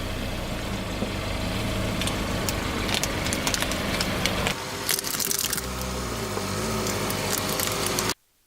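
Car engine running slowly with scattered crackling and popping as its tyre rolls over and crushes objects; the sound stops abruptly about eight seconds in.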